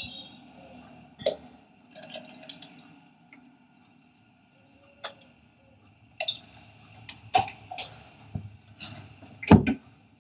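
Water sloshing, splashing and dripping as tomatoes are swished about in plastic cups and the water poured off, with light clicks and knocks of the plastic cups being handled. The sounds come in short spells, quiet in the middle, busier in the second half, with a heavier knock near the end.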